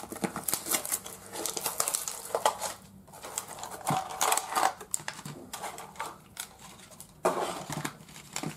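Plastic packaging crinkling and rustling with small sharp plastic clicks and taps, in several irregular bursts, as a Sportsclix baseball figure pack is opened and the figure handled.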